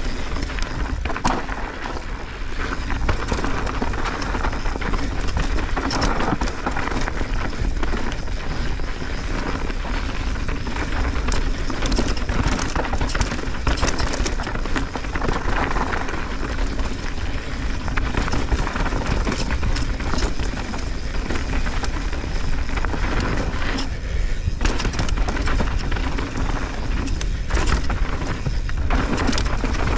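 Mountain bike descending a dirt singletrack at speed, picked up by a rider-mounted camera: a steady rush of wind and tyre rumble on the microphone, with frequent rattles and knocks from the bike over the rough trail.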